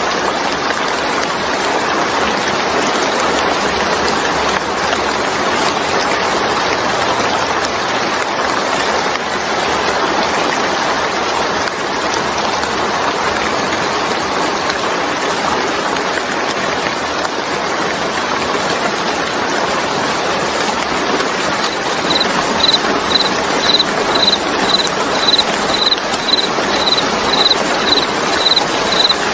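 Steady, even rain. About three-quarters of the way through, a short high-pitched chirp starts repeating about twice a second over it.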